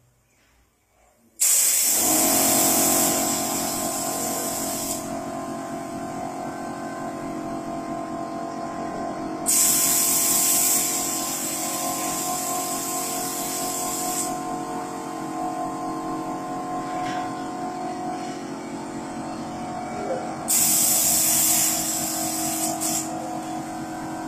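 Paint spray gun hissing in three long bursts as it sprays shading paint along a card stencil held against the wall. Under the bursts is a steady motor hum with several pitched tones, starting just after the first burst.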